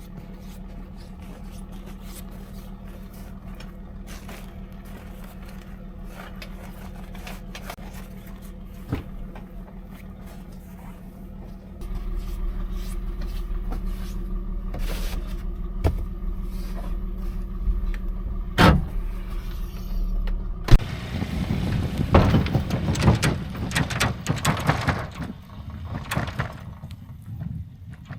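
Engine running steadily, with scattered knocks and scraping; it gets louder about halfway through, and a stretch of heavier scraping and rattling follows near the end.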